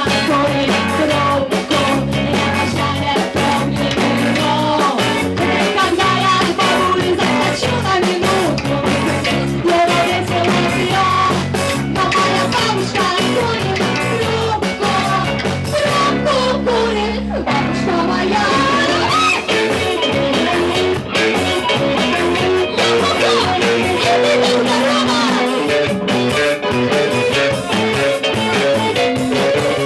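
Rock band playing: electric guitar and drums with a steady beat, with singing. The drums stop for a moment about halfway through, then the full band comes back in.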